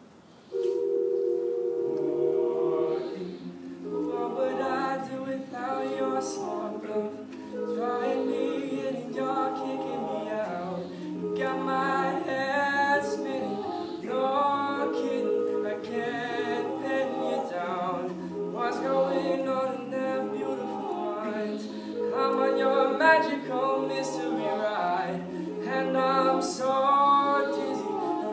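All-male a cappella group singing: a lead voice over sustained chords from the backing singers, after a brief break right at the start.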